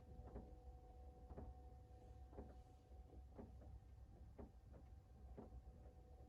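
Faint, regular ticking, a sharp tick about once a second with softer ones between, over a steady low hum.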